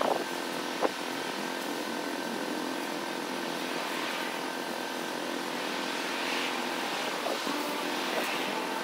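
Nylon tent fabric rustling in a few soft swells as it is unfolded and handled, over a steady mechanical drone, with one short click about a second in.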